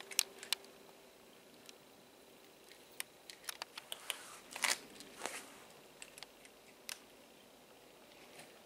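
Domestic cat eating dry kibble from a metal bowl: quiet, irregular crunches and clicks, most of them bunched about three to five seconds in.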